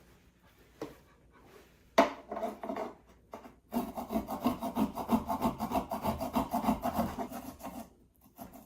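Ginger being grated: a sharp knock about two seconds in, then a run of quick rasping strokes for about four seconds.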